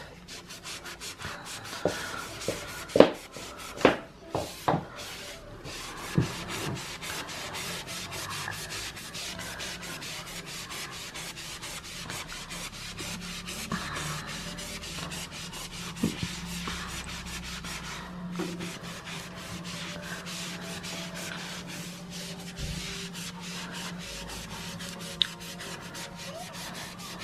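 Magic eraser (melamine foam) scrubbing crayon off a painted wall in fast back-and-forth strokes, a steady dry rubbing. A few louder knocks stand out in the first six seconds.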